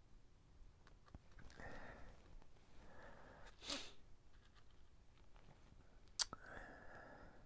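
A person breathing quietly through the nose, with one short, sharp sniff halfway through and a single small click near the end.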